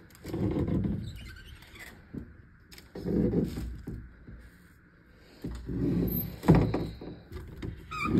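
Louvered closet doors being opened and shut: three rumbling bouts of movement, about half a second in, around three seconds in and from about five and a half seconds, the last ending in a sharp knock as a door meets its frame.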